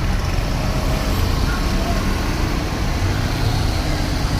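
Steady motor vehicle and road noise: an even, loud low rumble with a hiss above it, and no horn tune.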